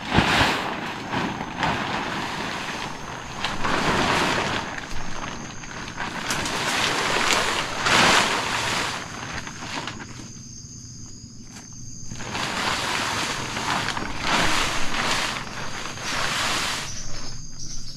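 Large blue plastic tarp rustling in repeated swells as it is dragged and unfolded across sandy ground, with a quieter stretch about two-thirds of the way through. Insects trill steadily and faintly in the background.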